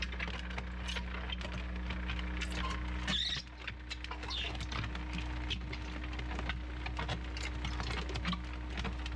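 A mixing bucket on a Bobcat compact track loader churns a damp earth-and-gravel rammed-earth mix: its paddles scrape and the gravel rattles over the loader's steady engine drone. About three seconds in, one of the drone's steady tones drops out and the sound dips briefly.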